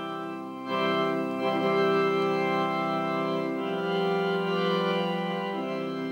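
Organ playing slow, held chords that change every couple of seconds.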